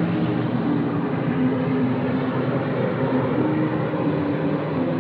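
Background film music, a melody of short held notes, over a steady rushing noise.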